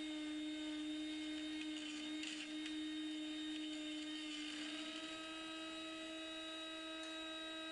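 The Proxxon MF 70 micro-milling machine's spindle motor running with a steady electric hum, dipping slightly in pitch a little past halfway.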